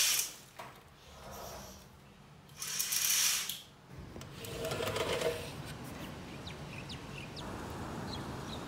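Cloth curtains drawn back along their rod in two brief scraping swishes, then the steady hiss of rain outside with a few light drip ticks.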